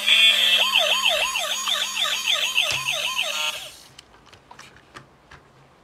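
Toy police car's electronic siren sound effect: a steady electronic tone, then a fast wail rising and falling about three times a second that cuts off suddenly after about three and a half seconds. A few faint clicks follow.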